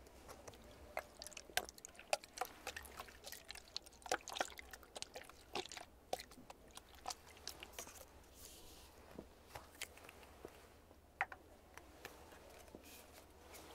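Close-up handling of plastic cosmetic spray bottles: irregular sharp clicks and taps as they are picked up, turned and set down, with brief rustles in between.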